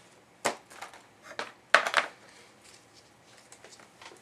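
Small hard craft supplies handled on a tabletop: a sharp click about half a second in, another about a second later, then a louder cluster of clicks and rattles just before the middle.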